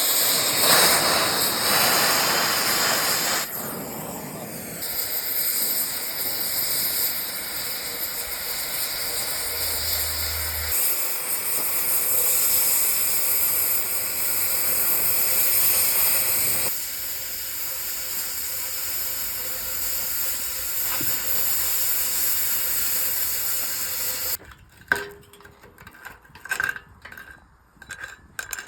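Electric arc welding on an excavator arm: a steady hissing sizzle that shifts in level a few times and cuts off suddenly about 24 seconds in, followed by a few light clicks and knocks.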